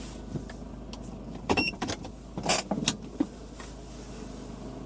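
Steady low drone of a car driving, heard from inside, with a few sharp clicks and short rustling noises between about a second and a half and three seconds in.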